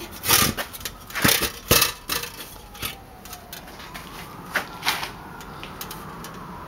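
Handling noise as a metal helmet and the camera are moved about: a quick run of knocks and rustles in the first two seconds, and two more knocks about halfway through.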